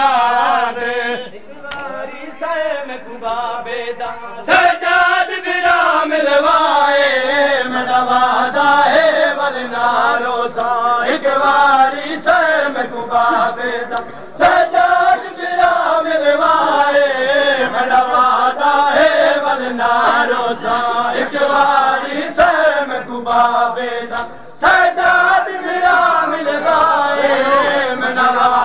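Voices chanting a noha (Shia mourning lament) in a rising and falling melody, with repeated short slaps of matam (ritual chest-beating) beneath it. The chant dips briefly about 14 and 24 seconds in before going on.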